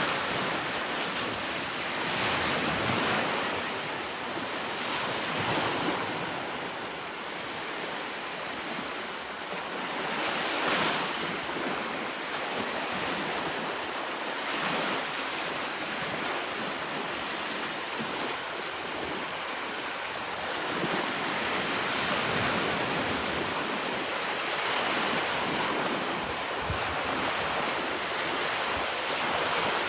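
Sea waves washing onto a shore, a steady surf noise that swells and recedes every few seconds, with some wind.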